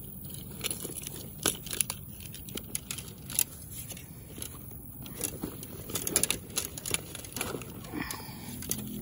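Handling noises while a bass is being weighed: scattered clicks, taps and rustling from hands working a fish scale and the fish, with a cluster of sharper clicks about six seconds in.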